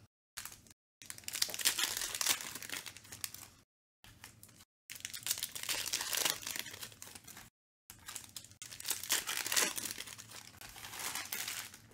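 A foil trading-card pack wrapper crinkling and tearing as hands open it and crumple it, in several rustling spells with short gaps between.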